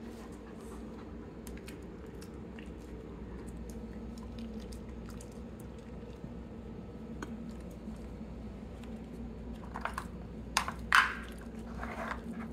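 A Scottish terrier chewing treats, with many small crunching clicks. Near the end come a few louder sharp clicks from the red plastic lids of a dog puzzle toy being handled.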